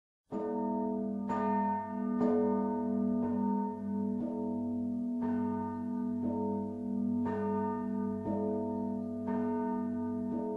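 Church bells ringing, with a bell struck about once a second over a continuous hum of sustained bell tones.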